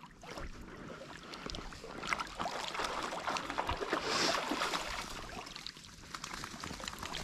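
Creek water sloshing and splashing, with irregular small knocks and rustles, busiest a couple of seconds in.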